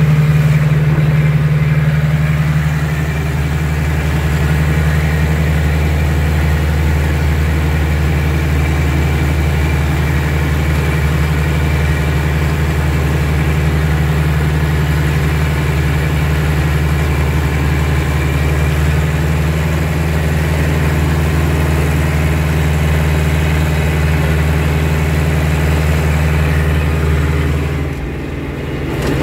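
Tractor's diesel engine running steadily under load while working a flail mower, heard from inside the cab. The engine note dips briefly near the end.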